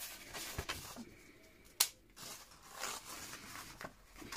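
Paper and card rustling and rubbing as a thin paper booklet is worked under the elastic bands of a handmade traveler's notebook cover. There is a sharp tap a little under two seconds in.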